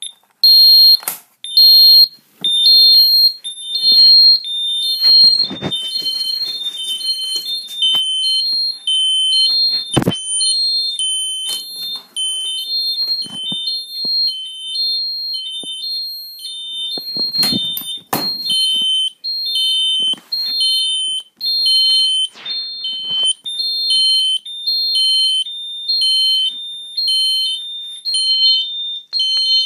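Ademco Vista 20P security system's alarm siren going off, a loud, high two-tone warble that switches pitch about every half second. It is an intrusion alarm tripped with the panel armed in maximum mode. A few knocks sound over it, the sharpest about a third of the way through and again past the middle.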